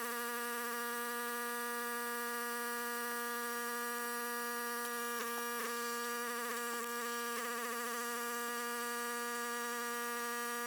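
A steady buzzing hum at one unchanging pitch, with a few brief wavers. It cuts off abruptly at the end.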